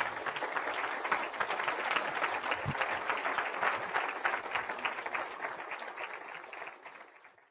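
Audience applauding, a dense patter of claps that gradually fades away near the end.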